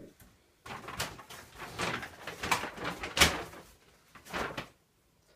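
Paper bag being handled: a quick, irregular run of rustles and light knocks, with two louder ones in the middle.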